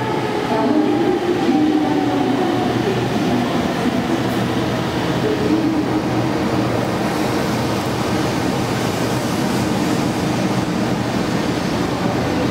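A Kyushu Shinkansen 800 series bullet train pulling into the station platform, a steady rumble of wheels and running gear with a low whine under it.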